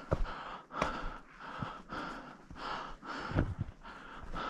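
A hiker breathing hard and fast from climbing a steep trail under a load, at about one breath a second, with a few sharp knocks.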